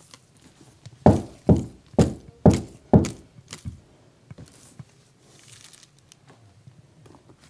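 Five knocks on a door, evenly spaced at about two a second, followed by a few fainter taps.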